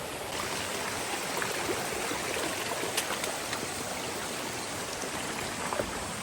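Mountain stream running steadily, with a few faint clicks and one sharper tick about halfway through.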